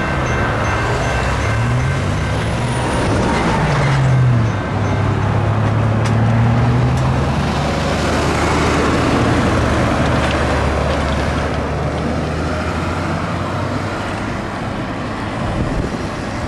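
Road traffic pulling away from a railroad crossing: car and truck engines rising in pitch as they accelerate and pass one after another, over steady road noise. The crossing's electronic warning bell stops just as this begins.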